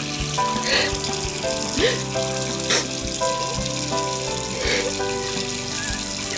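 Tap water running and splashing as a woman washes her face with her hands, broken by a few short sobs, over soft background music of long held notes.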